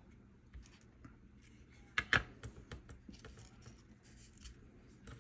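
Handling of a small plastic miter box and styrene rod on a cutting mat. Two sharp plastic clicks come about two seconds in, then lighter taps and rustles.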